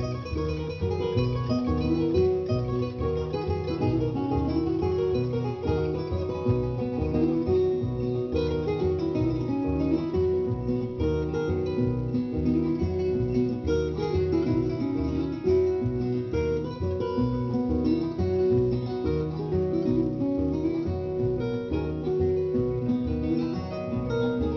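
Background music played on plucked acoustic guitar, a steady stream of quick notes.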